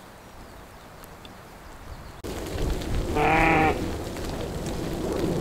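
A sheep bleats once, a single quavering bleat of under a second, about three seconds in, over a quiet background.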